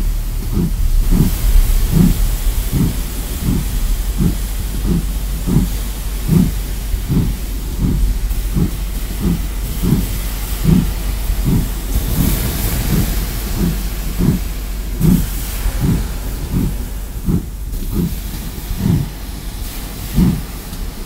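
Steam locomotive hissing steam, under a slow, even low pulse about three beats every two seconds.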